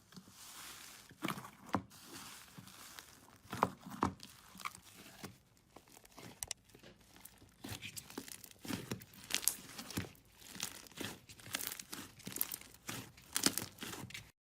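Slime being handled and pulled, giving irregular crackling, crunching and tearing pops, some sharper and louder than others.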